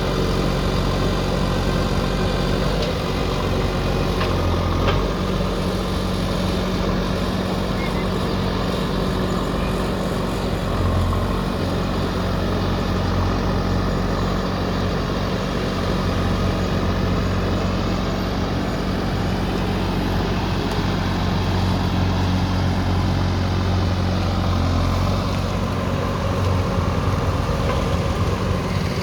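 JCB 3DX backhoe loader's diesel engine running steadily. Its low drone grows stronger at times as the machine works.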